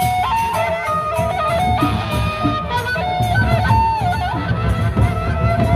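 Sasak gendang beleq ensemble playing: large barrel drums beating a dense rhythm under a high, held melody line that steps from note to note.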